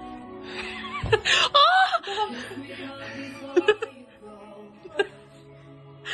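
Background music with a burst of high-pitched laughter about a second in, then a couple of short clicks.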